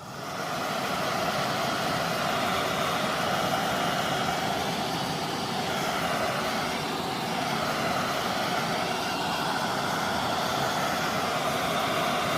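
Hot-air blower switched on and running with a steady rushing whoosh, heating the phone's glued back glass to soften the adhesive before it is pried off.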